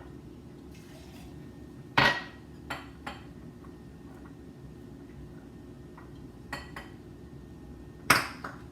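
Kitchen utensils and dishes clattering: a few sharp, separate knocks, the loudest about two seconds in and another near the end, over a steady low hum.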